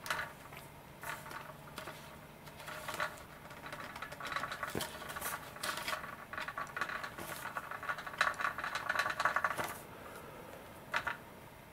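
Glider fuselage parts, the nose pod and boom, being worked and pressed together by hand: light clicks and scrapes, with a denser rattling stretch in the middle and one sharper knock, as the pieces and their plugs are pushed to mate without quite seating.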